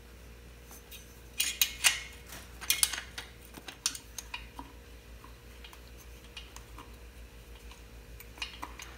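Metal clinking and rattling as the inlet rocker cover cap is worked loose and lifted off a Norton Manxman 650's cylinder head. A cluster of sharp clicks comes between about one and a half and four seconds in, followed by fainter, scattered clicks.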